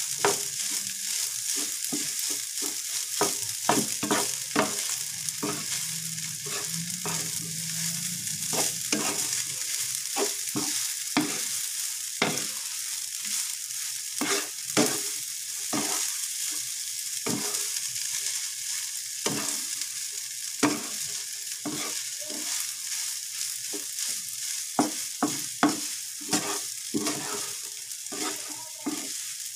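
Cold leftover rice frying in a pan with a steady sizzle, stirred and tossed with a spatula that scrapes and knocks against the pan many times.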